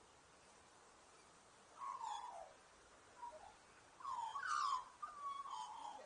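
Australian songbird calling: a run of warbling calls that glide down in pitch, starting about two seconds in, the loudest at about four and a half seconds, with a last call running on past the end.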